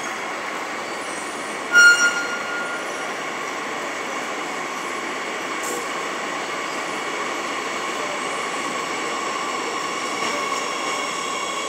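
Madrid Metro train approaching the platform: a steady rumble and whine that grows slowly louder as it nears. About two seconds in, a short, loud, high-pitched tone sounds briefly.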